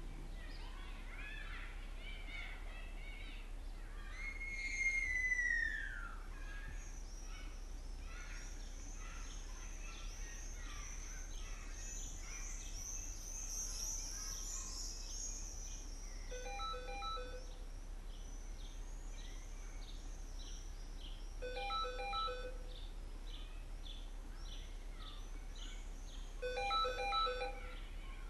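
A telephone rings three times, about five seconds apart, each ring a quick run of short electronic beeps. Birds chirp throughout, with one louder falling call about five seconds in.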